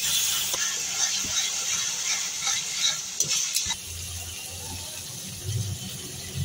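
Sliced onions and tomato pieces sizzling in oil in a metal karai while a spatula stirs them, scraping against the pan. The sizzle and scraping drop quieter a little under four seconds in.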